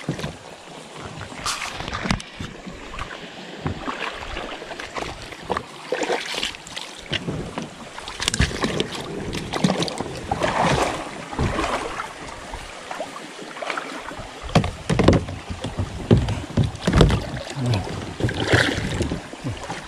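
Kayak on a river: irregular paddle splashes and knocks, one every second or two, over the steady rush of moving water.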